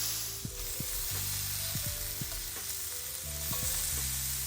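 Chopped onions sizzling as they glaze in a hot pan, a steady frying hiss with a few short knocks of a utensil stirring them.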